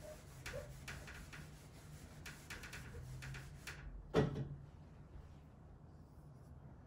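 Faint scratchy strokes of a marker drawing on a whiteboard, with one louder knock about four seconds in.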